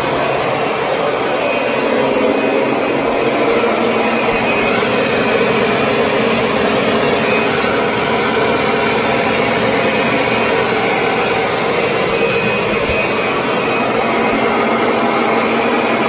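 Upright vacuum cleaner running steadily while it is pushed across a wood floor, a constant loud whir with a steady hum in it.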